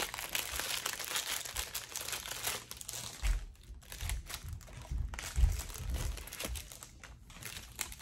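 Packaging crinkling and rustling as a set of makeup brushes is handled, with a few dull low knocks from about three seconds in.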